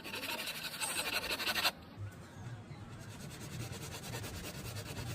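Rapid, even scratching or rasping, loudest for about the first second and a half, then continuing more faintly.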